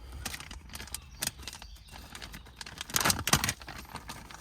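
Plastic packaging of a small hardware kit being crinkled and pulled open, with small metal parts (Allen keys and set screws) clicking and rattling. The loudest clatter comes about three seconds in.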